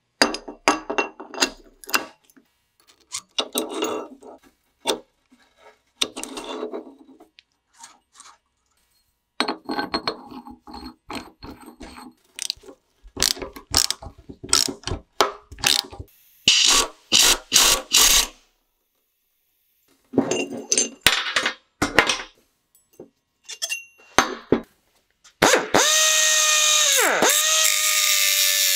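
Repeated runs of ratchet-wrench clicking and metal tool knocks as a bearing separator is tightened around the pinion bearing. Near the end an angle grinder starts and cuts into the tapered carrier bearing on the differential case, its whine dipping sharply in pitch once as the disc bites, then recovering.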